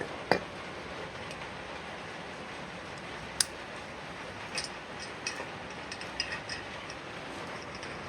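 Sharp metallic clicks and light taps from refrigeration charging gear being handled: one click near the start, a louder one about three and a half seconds in, then a scatter of small ticks. A steady low background noise runs underneath.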